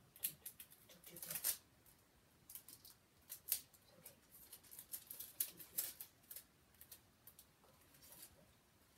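Crisp, irregular crinkling and crackling of a wrapping being handled, a string of sharp little crackles that are loudest about a second and a half in and again about three and a half seconds in.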